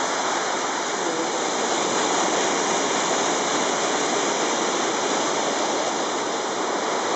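Waterfall and river rushing steadily, running high with a lot of water after several days of rain.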